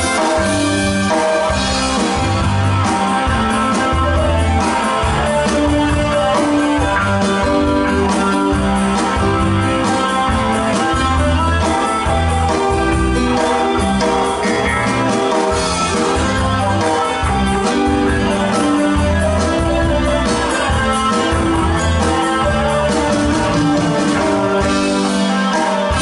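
Live band playing a pop song: electric guitar and drum kit over a steady beat, with sung vocal at times.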